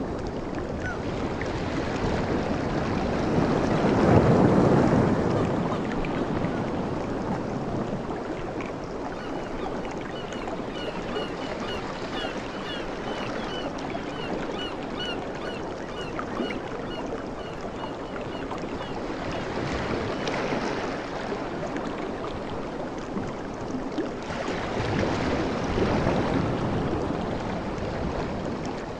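Waves breaking and washing up on a beach in slow swells, the loudest about four seconds in, with further swells around twenty and twenty-six seconds. A run of short, high chirps repeats through the middle.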